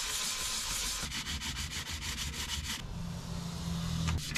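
Hand sanding with very fine sandpaper: quick back-and-forth rasping strokes over the PC case's front cover, taking off the glossy finish and engraver scratches.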